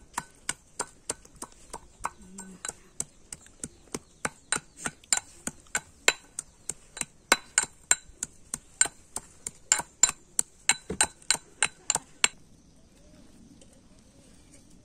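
Metal pestle pounding in a metal mortar, about three strikes a second, each with a ringing metallic clink. The pounding stops about twelve seconds in.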